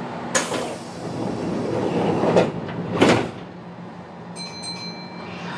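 Sliding doors of a stopped Kintetsu commuter train closing, with a sharp click, a rush of air and two thuds. A brief high tone follows near the end.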